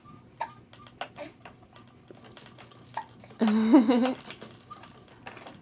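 Baby bouncer jumper clicking and tapping lightly and irregularly as a baby bounces in it, with one short voice sound about three and a half seconds in.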